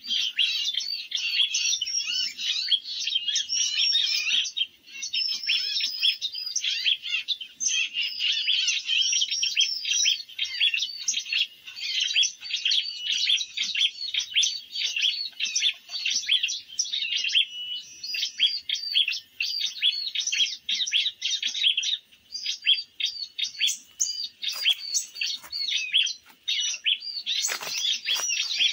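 Small birds chirping and twittering rapidly and without pause, many high, quick calls overlapping. Near the end, a brief rustle or bump.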